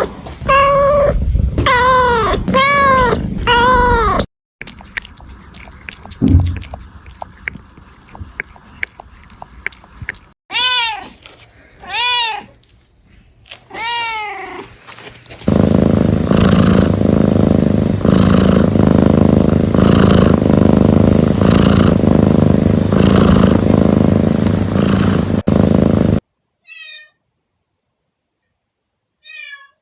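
Kittens meowing in several short clips. Quick runs of short, high meows that rise and fall come at the start and again about halfway through. A long stretch of loud, steady noise with a regular pulse follows, and a few faint, thin meows come near the end.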